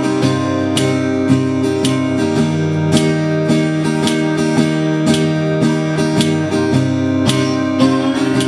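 Acoustic guitar strumming chords in a steady rhythm, an instrumental song intro with no singing.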